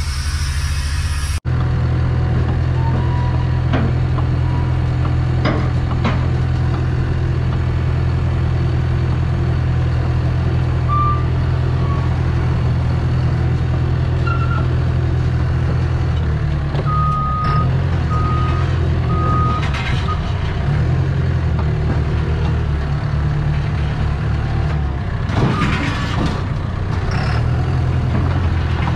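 Cat D3 bulldozer's diesel engine running steadily as the dozer is driven off the lowboy trailer. Its backup alarm gives several short high beeps around the middle, and metal clanks near the end.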